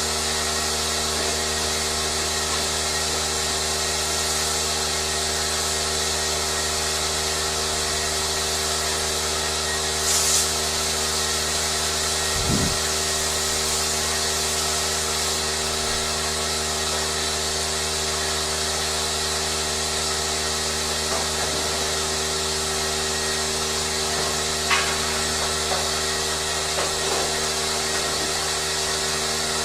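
Machinery running steadily: a constant motor hum with a strong hiss over it, broken by a few brief louder knocks and swishes about ten, twelve and twenty-five seconds in.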